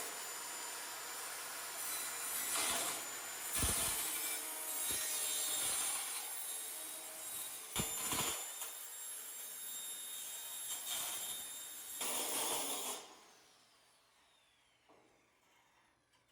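Power saw cutting through a siding panel for about thirteen seconds, then the motor winding down with a falling whine once the cut is done.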